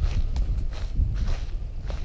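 Footsteps on a pine-needle woodland path, about two a second, over a steady low rumble on the microphone.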